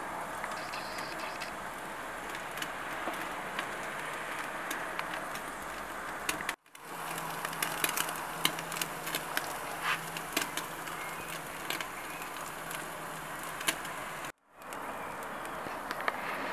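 Steak sizzling under the ceramic burners of a We Grill Young 3 top-heat grill at full heat: a steady hiss with scattered crackles and pops of spitting fat. The sound cuts out abruptly twice, about six and a half and fourteen and a half seconds in.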